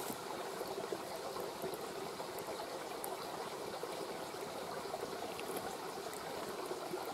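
A mountain river flowing steadily over its bed, with a few faint crackles from a campfire.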